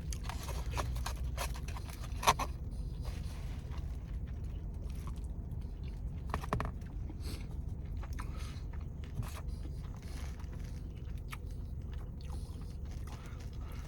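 A person chewing a mouthful of food, with scattered small scrapes and clicks, over a steady low hum.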